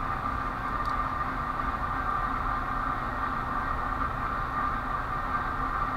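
Steady background hum of a running machine, such as a fan or air conditioner, with a faint click about a second in.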